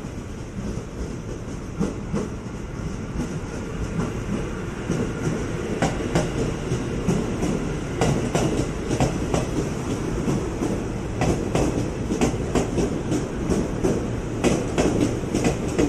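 An electric commuter train (KRL Commuter Line EMU) pulls in alongside the platform. Its rumble grows louder as it nears, and from about five seconds in its wheels clack over the rail joints as the cars pass close by.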